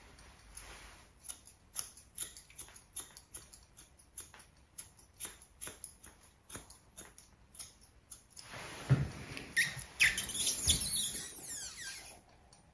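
Grooming scissors snipping a dog's face hair: short, crisp snips at about two or three a second. About nine seconds in come a few louder knocks and rustles of handling.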